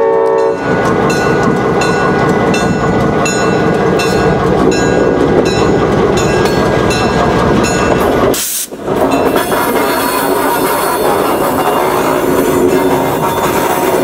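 EMD GP38-3 diesel-electric locomotive running as it rolls slowly past, its diesel engine and wheels on the rails making a steady loud noise. The multi-chime Nathan P5 air horn ends in the first half-second. The sound drops out briefly about two-thirds of the way in.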